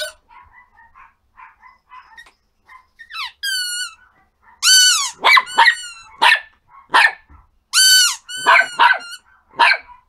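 Yorkshire terrier whimpering softly, giving two rising yelps about three seconds in, then a run of about nine loud, high-pitched yapping barks in the second half.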